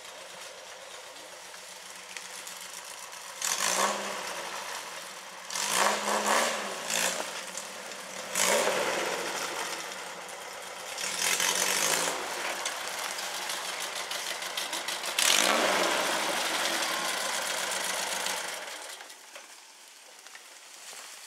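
Volkswagen engine of a rail buggy running under load on a climb, revving up in about five loud bursts between steadier running. The engine sound drops away sharply near the end.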